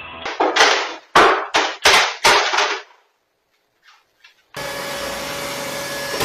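Robot vacuum tumbling down stairs: about six loud knocks in quick succession over the first three seconds, then near silence with a couple of faint clicks. From about four and a half seconds in, a steady hum takes over.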